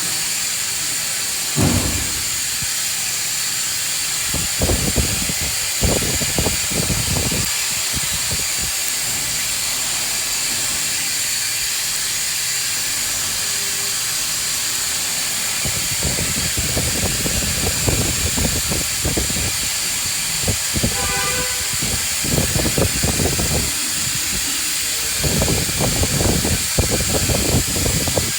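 Hand tools working on an engine: clusters of rapid clicking in short bursts, over a constant hiss.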